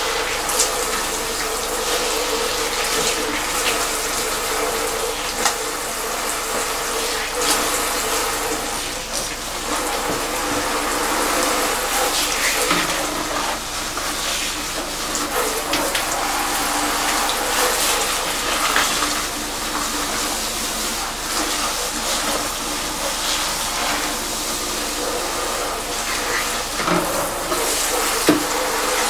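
Salon handheld shower sprayer running steadily, water spraying onto thickly lathered hair and splashing into the shampoo basin as the shampoo is rinsed out. A few small clicks and knocks sound now and then over the water.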